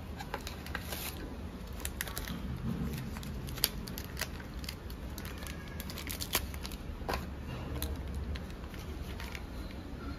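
Crinkling and rustling of a sterile suture packet handled in gloved hands, with scattered small clicks and taps, two of them sharper, one about three and a half seconds in and one about six seconds in.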